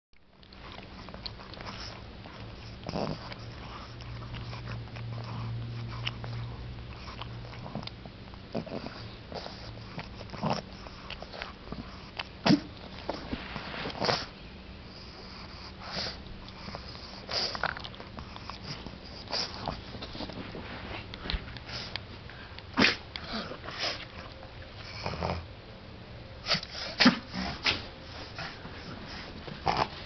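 A pug snuffling and sniffing, with short sharp snorts every second or two that come louder and closer together near the end.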